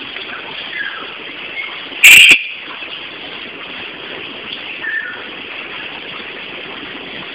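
Steady background noise, with one loud brief bang or bump about two seconds in and a couple of faint short chirps.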